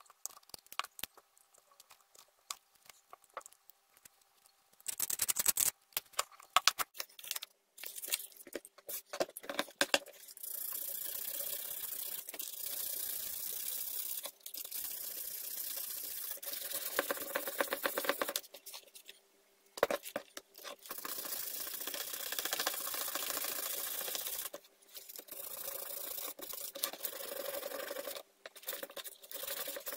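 Knife clicking and scraping as it trims cured epoxy resin off a clock's edge. From about ten seconds in, this gives way to a steady hiss of P1000 wet-and-dry sandpaper rubbing on the resin, in long stretches broken by short gaps.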